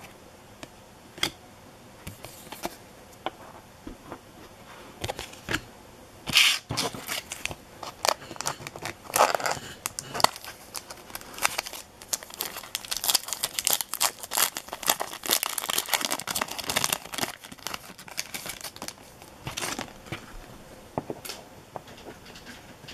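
A foil trading-card pack wrapper crinkling and tearing as it is opened, a dense crackle through the middle stretch, with scattered sharp clicks of cards being handled before and after.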